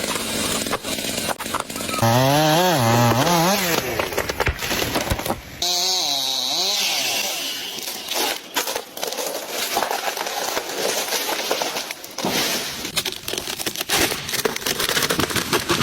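Chainsaw revving, its pitch swinging up and down repeatedly, in short stretches broken by abrupt cuts. A noisy stretch follows, scattered with sharp cracks.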